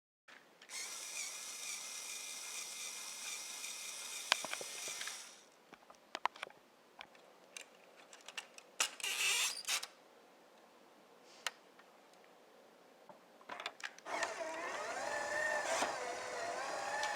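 Small electric motor of a Lego Technic truck running with a steady whine for about five seconds, then stopping. Scattered plastic clicks and a short burst follow, and near the end the motor whines again, its pitch wavering up and down.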